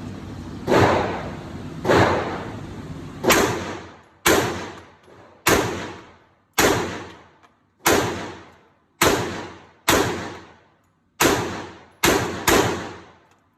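About a dozen single gunshots fired at a steady pace of roughly one a second, each followed by an echoing decay. The last two come close together.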